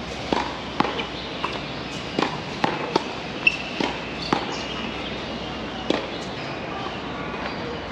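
Tennis ball struck by rackets and bouncing on the court: about ten sharp pops in quick, uneven succession, stopping about six seconds in.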